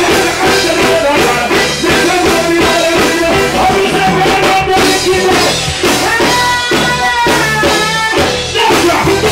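Live reggae band playing loud through a stage PA, with a steady drum kit beat under a male singer on a handheld microphone; his voice holds a long, wavering line for about two seconds, starting around six seconds in.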